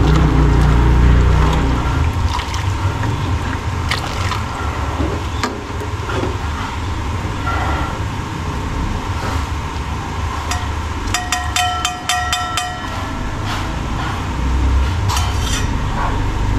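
Metal ladle and strainer clinking against a pan of simmering palabok sauce over a steady low rumble. Annatto oil is poured through the strainer into the sauce partway through, and a brief run of rapid high-pitched beeps comes past the middle.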